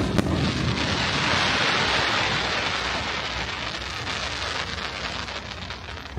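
Fireworks: a bang at the very start, then a dense crackling hiss from crackle stars that swells over the first two seconds and slowly dies away.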